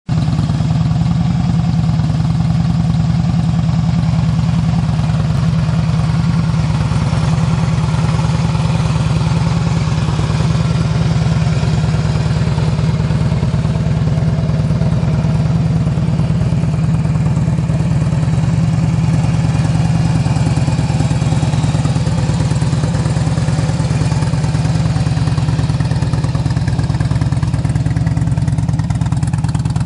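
2007 Harley-Davidson Electra Glide Classic's Twin Cam 96 V-twin idling steadily through Vance & Hines mufflers, with Stage 1 fuel mapping.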